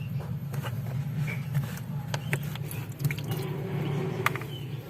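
A steady low hum with scattered small clicks and taps, and faint squishing of water sitting in a refrigerator's blocked defrost drain hole.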